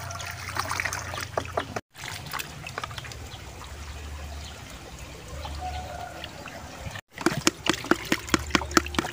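Water trickling and splashing in plastic tubs as gourami fry are tipped from a hand net into a perforated plastic basket and the basket is lifted out, water draining through its holes. Near the end there is a quick run of small splashes and ticks.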